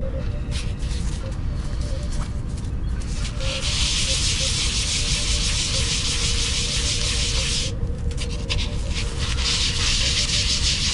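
A primed prop part being rubbed back and forth on a flat sheet of abrasive paper, making a steady scratchy sanding noise as the primer coat is smoothed. The noise starts strongly about three and a half seconds in and stops briefly a little before the eight-second mark.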